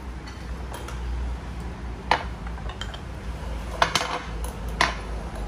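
Ceramic tableware knocking and clinking as it is handled and set down: one sharp clink about two seconds in, then three more close together near the four- and five-second marks.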